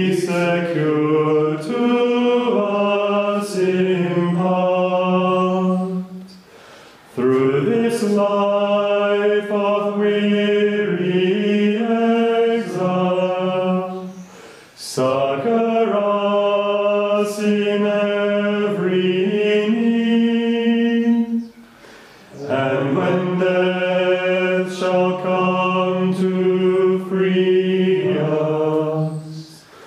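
Unaccompanied plainchant sung by male voices, in four long phrases of held notes with a short break for breath between each.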